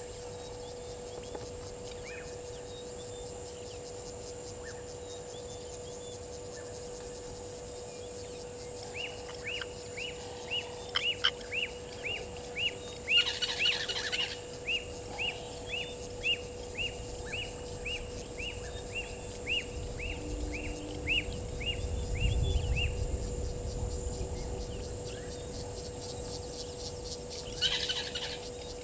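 Blacksmith lapwing calling a sharp, metallic 'tink' over and over, about two to three notes a second for some ten seconds.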